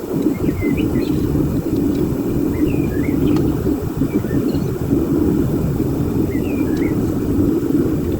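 Home foundry furnace burner running with a steady low roar while copper pipe melts in the crucible. Small birds chirp briefly now and then over it.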